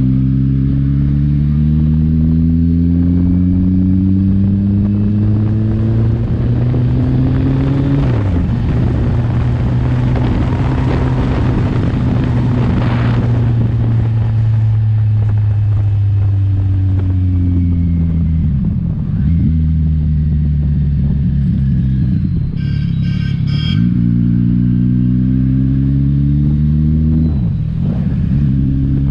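Kawasaki Ninja 1000's inline-four engine under way, its pitch climbing steadily as it accelerates, then holding at speed with wind rush. Later it drops and climbs again through upshifts. A few short high-pitched beeps sound a little past the middle.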